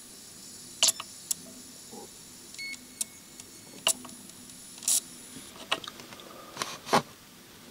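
Yamaha DVD-E600 DVD player's disc drive mechanism, heard close up, making irregular sharp clicks and ticks. A thin high whine runs from about a second in to past the middle. It is the laser pickup failing to read the disc.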